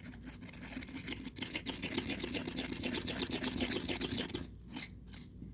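Two-part epoxy resin being stirred hard in a mixing cup: fast, rhythmic scraping of the stir stick against the cup's sides and bottom. It stops about four and a half seconds in, followed by a couple of light taps.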